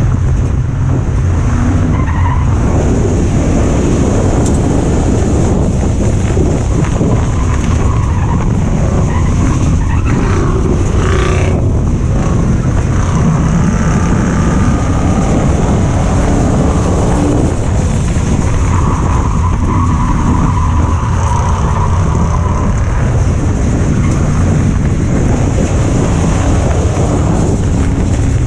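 Ford Crown Victoria race car's V8 engine running hard at racing speed on a dirt oval, heard loud and steady from inside the stripped, caged cockpit, with wind and tyre noise mixed in.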